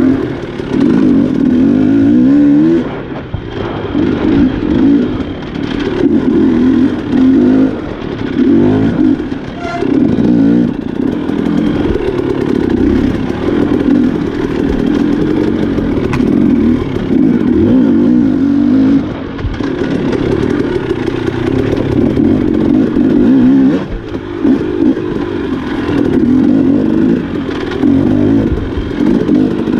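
Off-road enduro motorcycle engine being ridden hard along a trail, revving up and down over and over as the throttle opens and closes every second or two. Scattered knocks and clatter run through it.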